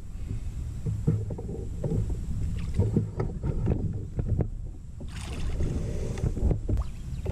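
Water splashing and sloshing beside a kayak as a largemouth bass is held in the water and released, with scattered knocks against the hull and a steady low wind rumble on the microphone. A louder splash comes about five seconds in.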